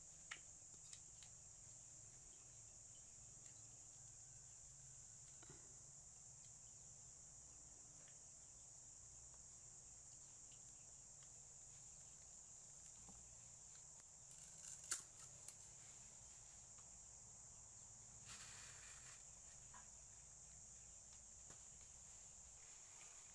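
Near silence with a faint, steady high-pitched drone of insects. A few light clicks come about fifteen seconds in, and a short rustle a few seconds later.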